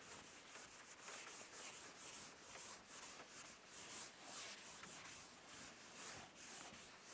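Chalkboard eraser wiping chalk off a chalkboard: faint, repeated swishing strokes, about two to three a second.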